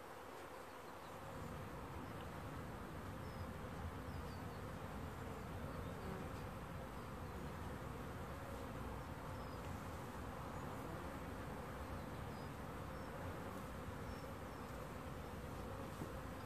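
Steady buzzing of many honeybees flying in front of a wooden hive entrance, young bees making their first orientation flights; the hum swells slightly about a second in.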